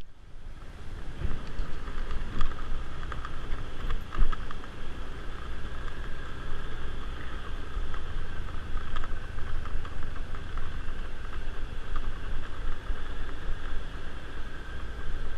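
A vehicle engine running steadily while on the move, with a continuous rumble and wind and road noise.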